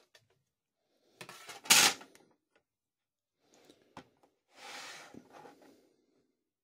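Objects being handled and moved about: a loud scraping rustle about a second in, a sharp click about four seconds in, and a softer rustle just after.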